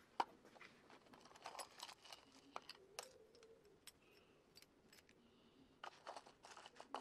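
Faint, scattered clicks and jingles of a bunch of metal keys and small metal balls being handled in a shallow box.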